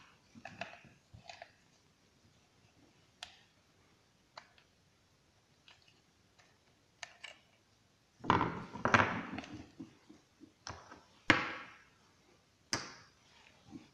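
Clicks and scrapes of hands and a screwdriver working on a Honda distributor as its rotor is unscrewed and pulled off the shaft. There are a few light ticks at first, a louder stretch of scraping about eight seconds in, and short knocks of parts set down on a wooden tabletop near the end.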